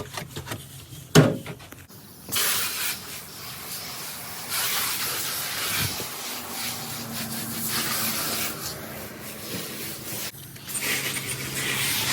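Knocks and a sharp bang, then water spraying in a steady, uneven hiss onto the inside of a dirty refrigerator being washed out.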